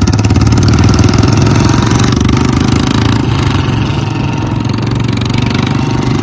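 Royal Enfield Bullet 350's single-cylinder engine running loud and thumping through an open C-bend exhaust pipe with the silencer removed, as the bike is ridden at low speed.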